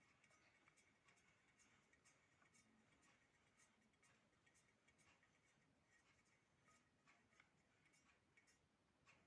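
Near silence: faint room tone with faint, scattered clicks.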